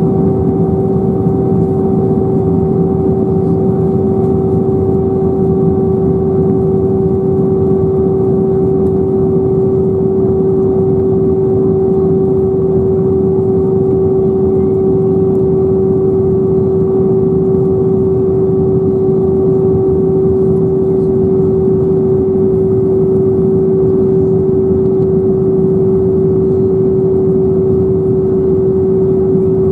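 Cabin noise inside an Airbus A320-214 in flight: the steady hum and rush of its CFM56 turbofan engines and the airflow, with one strong unchanging tone above it.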